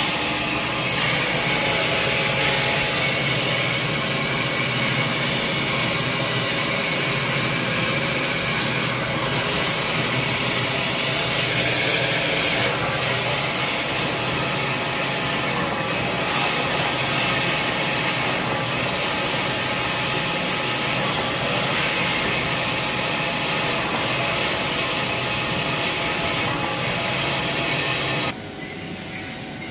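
Band-saw log cutter for toilet-paper rolls running steadily, its blade slicing a paper log into rolls: a loud machine noise with steady high-pitched tones. It stops abruptly about a second and a half before the end.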